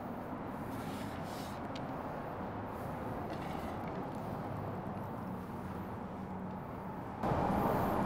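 Steady low background noise with no clear source, stepping up suddenly louder about seven seconds in.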